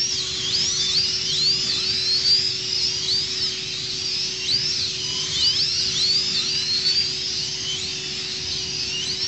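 Several slot cars' small electric motors whining at high pitch, each one rising and falling as the cars speed up and slow down, many overlapping at once. A steady low hum runs underneath.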